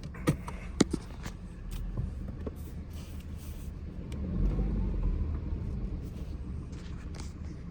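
Car engine running and revving up for a couple of seconds near the middle, with sharp knocks scattered through, the loudest two in the first second. This is the knocking noise the owner hears when accelerating.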